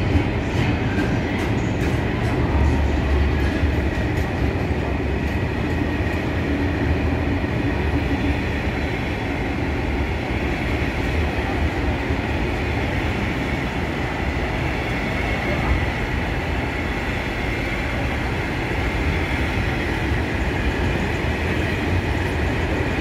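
Freight train's loaded container flat wagons rolling steadily past: a continuous rumble of steel wheels on the rails, with a few sharp clacks in the first second.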